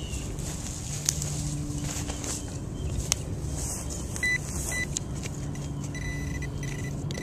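Garrett Pro-Pointer pinpointer probing in a dig hole: two short beeps about four seconds in, then a steady alert tone from about six seconds, signalling the metal target at the bottom of the hole. Two sharp knocks in the first few seconds, and a low engine-like drone that comes and goes.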